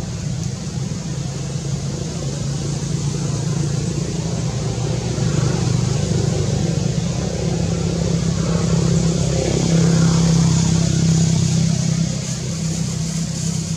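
An engine running steadily, a low even hum that grows a little louder around ten seconds in.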